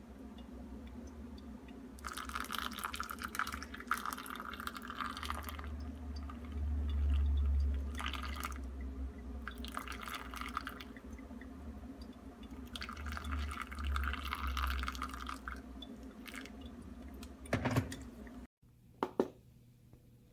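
Water poured in a thin stream from the spout of a Fellow Stagg EKG electric gooseneck kettle into a cup, in four separate pours of a few seconds each. Two short knocks come near the end.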